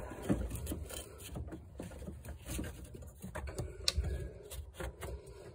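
Hands handling the fuel pump module's plastic top and lock ring in the tank opening: scattered light clicks, taps and scrapes.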